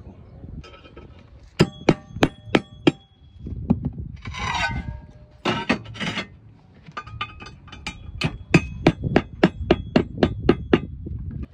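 Hand hammer tapping on clay roof tiles where the flashing meets them, each blow ringing briefly. The blows come in short groups, then in a fast run of about four a second over the last few seconds, with a short scrape about four seconds in.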